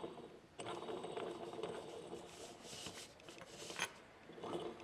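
Hands handling and fitting small metal engine parts, an aluminium upright and a flywheel, on a paper-covered workbench: continuous rubbing and scraping, with a sharp click about four seconds in.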